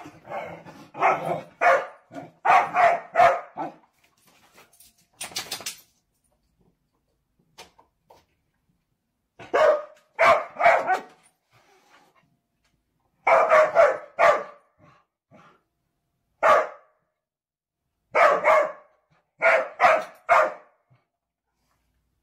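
Dog barking in clusters of two or three short barks, with quiet pauses between the clusters.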